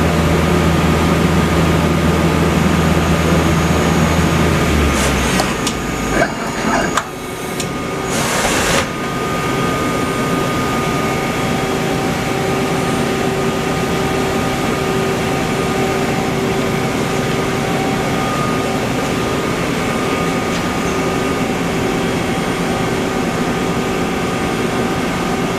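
2007 Mazak Quick Turn Nexus 400 II CNC turning center running. A steady low hum cuts out about five seconds in, followed by a few sharp knocks. It then settles into a steady mechanical hum with a higher whine.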